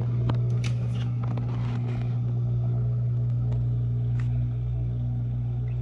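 Samsung dishwasher's pump motor running with a steady low hum early in a Normal wash cycle, with a few scattered clicks over it.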